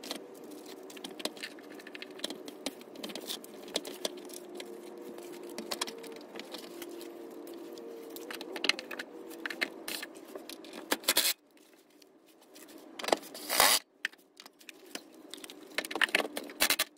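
Scraping and clicking of the plastic EVAP charcoal canister and its brackets being handled back into place under the car, over a steady hum that stops about eleven seconds in. Then a few short bursts of a cordless drill/driver running the canister's 10 mm mounting bolts in.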